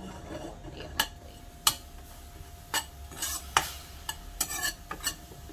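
Metal spoon stirring minced garlic and ginger in a nonstick pan, clinking and scraping against the pan in about ten irregular sharp knocks.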